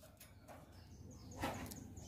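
Mostly quiet cage, with one faint brief rustle about one and a half seconds in as the velvet-fronted nuthatch moves about and lands back on its perch.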